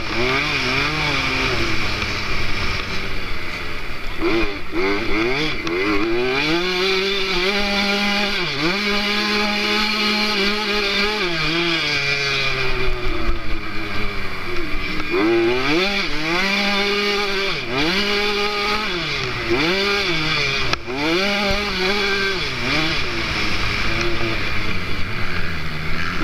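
KTM 65cc two-stroke motocross engine heard on board the bike, revving up and dropping back again and again as the rider accelerates and backs off through the track's sections, with a stretch of a few seconds held at steady revs about a third of the way in.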